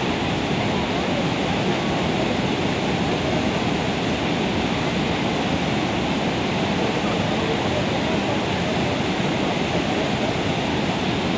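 Steady rush of water pouring over a waterfall into a creek, an even, unbroken noise.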